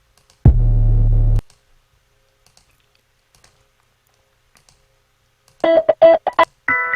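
Music sample previews auditioned in a DAW browser and cut off abruptly: a deep bass-heavy tone about half a second in that stops after about a second, then near the end a quick run of short pitched stabs and a held chord, with faint mouse clicks between.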